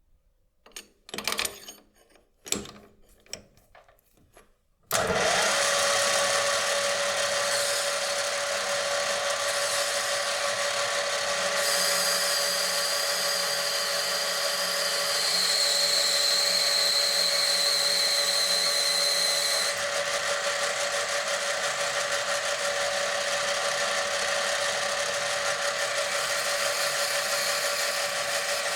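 A few short handling knocks, then about five seconds in an electric power tool switches on and runs steadily with a constant hum. A high whine joins for several seconds in the middle and stops.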